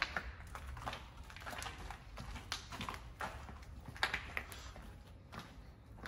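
Footsteps scuffing and crunching over a floor strewn with grit and plaster debris, with irregular small taps and knocks and one sharper knock about four seconds in.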